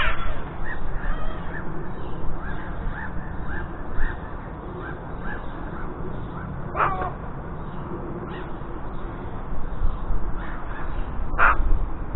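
Harsh calls of a crow-family bird, three short loud ones: at the start, about seven seconds in and near the end, with fainter short high chirps between them in the first half, over a steady low rumble.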